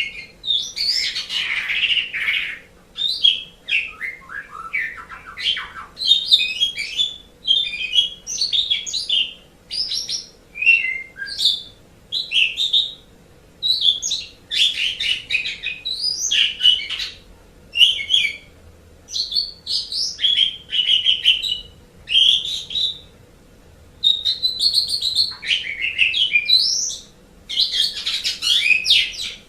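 Asian pied starling (jalak suren) singing a varied song of whistles, chatters and harsh notes in short phrases with brief pauses between them, one after another.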